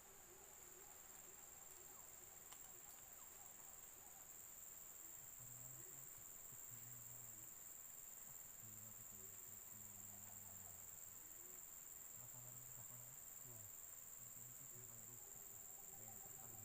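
Faint, steady high-pitched insect chorus of crickets or cicadas, with faint low hums coming and going from about five seconds in.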